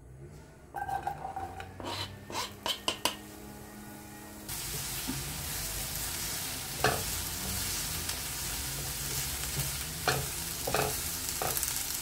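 Chopped onion pushed from a plastic cutting board into a non-stick frying pan with a few sharp taps, then from about four and a half seconds in a steady sizzle of the onion frying in a little oil, with a spatula stirring and knocking against the pan now and then.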